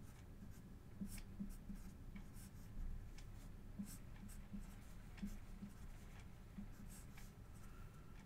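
Marker pen drawing short strokes of a circuit diagram: faint scratchy squeaks, many short ones at irregular intervals.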